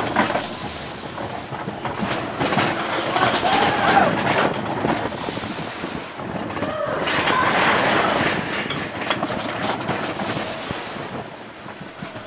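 Matterhorn Bobsleds roller-coaster car running along its steel track, heard from on board: a steady rush of wind on the microphone over the rumble of the track, louder around four seconds and eight seconds in, with a few brief squealing rising-and-falling tones.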